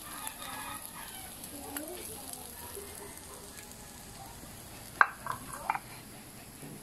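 Round scad (galunggong) frying in oil in a pan, a faint steady sizzle. About five seconds in, metal kitchen tongs clack sharply three or four times as they take up fish.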